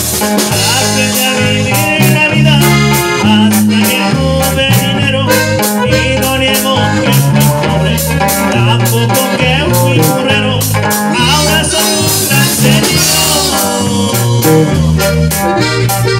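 Norteño band playing live: electric bass, bajo sexto and a steady drum beat under the melody, an instrumental passage between sung lines.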